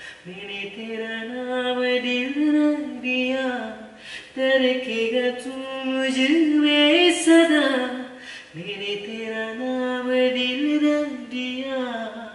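Two men singing unaccompanied in turn, a slow melody of long held notes with gliding ornaments.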